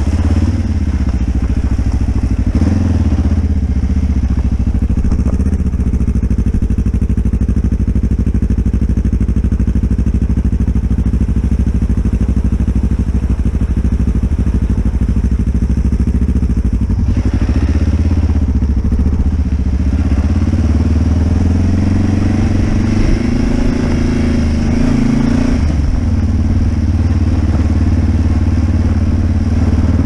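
Adventure motorcycle engine running steadily at low speed on a gravel dirt track, with clattering from the rough surface. In the second half the engine pitch rises and falls a few times as the throttle is opened and closed.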